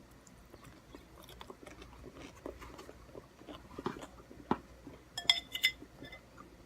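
Close-up chewing and biting of food, with small wet clicks and crunches. About five seconds in, a few sharp clinks ring out briefly.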